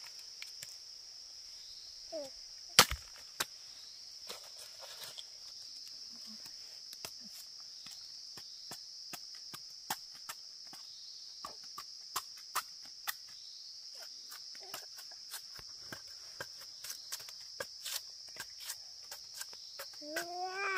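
Crickets chirring in one steady high trill, with scattered sharp clicks and knocks over it, one much louder knock about three seconds in.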